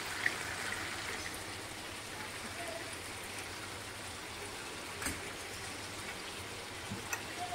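Oil sizzling steadily as beef koftas shallow-fry in a frying pan, with one short click about five seconds in.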